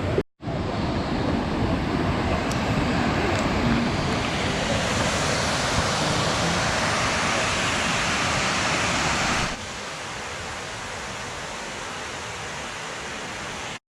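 Steady rushing roar of a large waterfall, a full hiss of falling water. About two thirds of the way through it drops suddenly to a quieter, duller rush.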